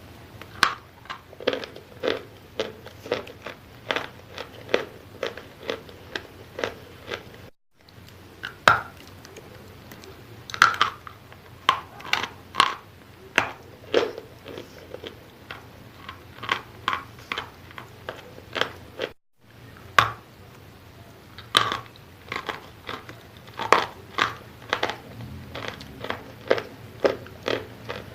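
Wet chalk being bitten and chewed close to the microphone: a steady run of sharp crunches, about two a second. The sound cuts out completely twice for a moment.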